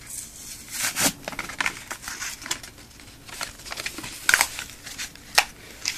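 Trading-card packaging crinkling and rustling as it is handled, in irregular crackles with a few sharper ones spread through.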